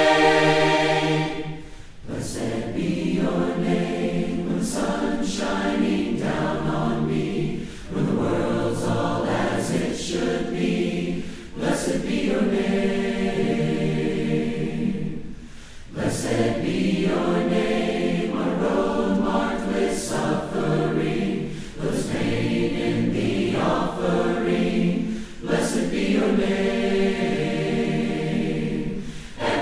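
Choir singing a hymn in sustained phrases, with short breaks between them.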